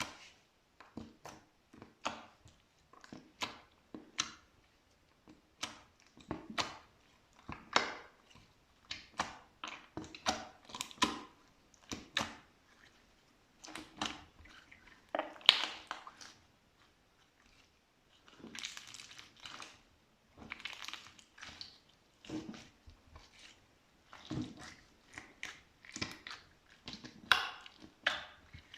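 Slime being squeezed and pressed by hand: an irregular run of short wet squishes and crackly pops, one or two a second.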